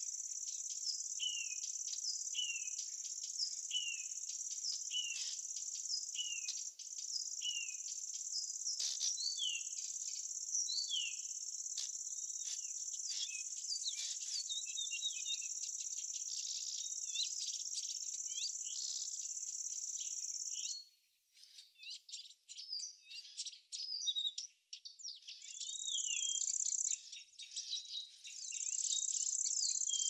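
A steady, high-pitched insect chorus with birds chirping over it. In the first few seconds one bird repeats a short falling call about every two-thirds of a second. About two-thirds of the way through, the insect chorus cuts off suddenly, leaving only the scattered bird chirps, and it comes back near the end.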